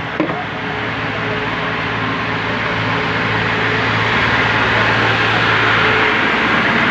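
A steady hum under a loud hiss, with one sharp click just after the start; the hiss grows a little louder from about four seconds in.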